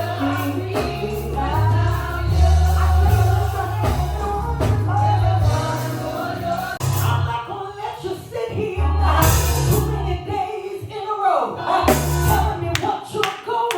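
Gospel worship music: singers over a band with a heavy, sustained bass line and occasional cymbal crashes.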